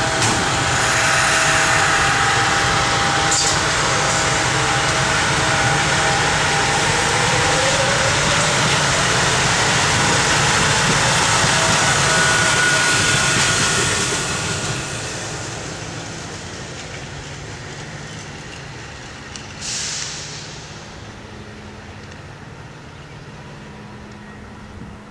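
Four-car SEPTA electric multiple-unit commuter train running past close by: a steady rumble of wheels on rail with a motor hum and a whine that rises in pitch about eight seconds in. The noise fades as the train moves away about fourteen seconds in, and a brief hiss comes about twenty seconds in.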